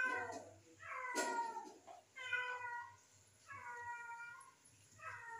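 A cat meowing over and over: about five short calls a little over a second apart, each sliding slightly down in pitch. A brief rustle about a second in.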